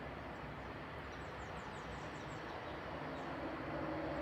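Small birds chirping in quick runs of short, high, falling notes over a steady outdoor background hum.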